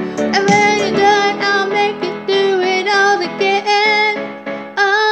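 A woman singing along to a karaoke backing track, her voice holding long notes. The low accompaniment drops away about a second and a half in, leaving mostly the voice.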